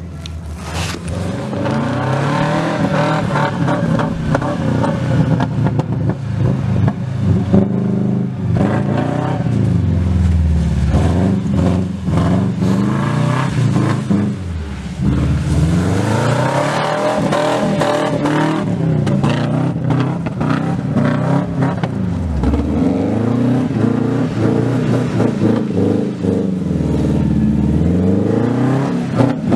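Subaru Legacy Outback's EJ22 2.2-litre flat-four, fitted with unequal-length headers and with the axle-back exhaust removed, revving up and falling back again and again as the car slides through snow under power. Loud, its pitch rising and falling several times.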